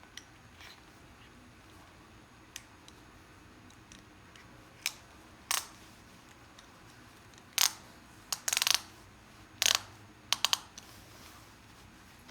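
Sharp metallic clicks and clinks from a leather ratchet belt's metal buckle being handled and fastened, a scattering of single clicks with a quick rattling run of them about eight and a half seconds in.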